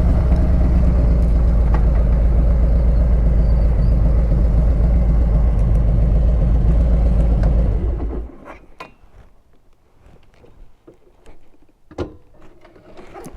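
Harley-Davidson Ultra Limited V-twin engine running with a steady low beat, then switched off about eight seconds in, cutting out suddenly. After that there are only a few faint clicks and knocks.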